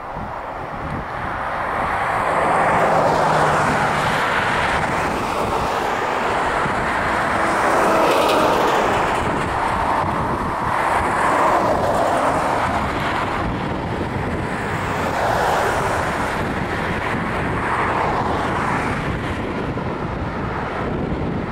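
Boeing 737-800's CFM56-7B turbofan engines spooling up to takeoff thrust for the takeoff roll, heard from behind the aircraft. A loud, steady rushing jet noise that rises about two seconds in, then swells and dips unevenly as the aircraft rolls away.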